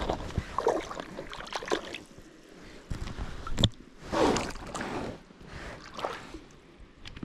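Shallow lake water splashing and sloshing in irregular bursts as hands work in it at the rock edge, letting a small caught trout go. A sharp tap a little past halfway is the loudest sound.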